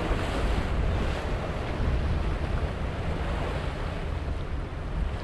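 Steady wind rumbling on the microphone over the wash of water, as a Vanquish motor yacht cruises past at low speed.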